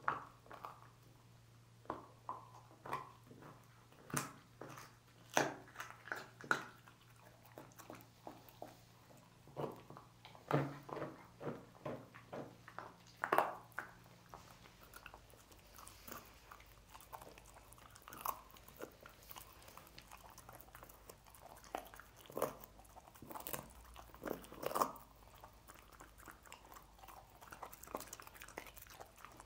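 Dog gnawing and crunching cooked pork bones: irregular sharp cracks of bone between its teeth, mixed with chewing. A faint low hum under the first half stops about halfway through.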